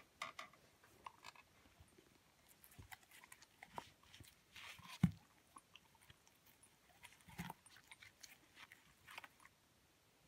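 Young Hamiltonstövare dog biting and chewing a half-eaten apple, with scattered faint crunches and wet mouth clicks. The loudest crunch comes about five seconds in.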